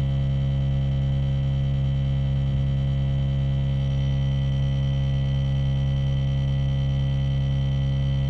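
ARB CKMA12 12-volt onboard air compressor running steadily under load as it pumps a 35-inch tire up toward 30 psi, a constant droning hum with a few fixed higher tones over it.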